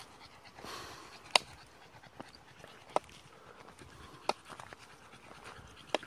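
Footsteps on a gravel track, a sharp crunch about every second and a half, with panting breath between.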